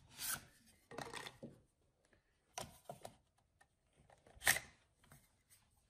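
A few short scrapes and clicks as the plastic protective face is pried off the jaw of a Bessey parallel clamp with a screwdriver, the loudest about four and a half seconds in.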